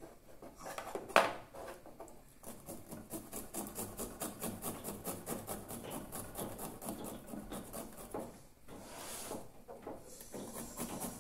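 Garlic cloves being grated on a small handheld metal grater: rapid, even rasping strokes, about four or five a second, with a short break near the end. A sharp knock comes about a second in, before the grating starts.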